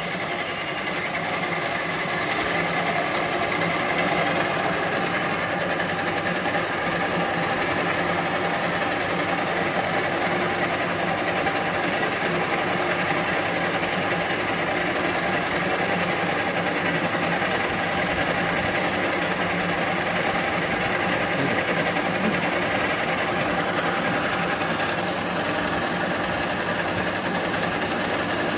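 Capstan lathe running steadily, a dense mechanical hum and clatter, with a few brief high hisses in the middle.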